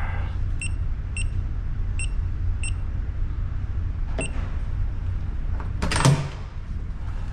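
Electronic keypad door lock beeping four times as a four-digit code is keyed in, then a beep with a click as the lock releases about four seconds in. A louder clack of the door latch or handle follows near the end, over a steady low hum.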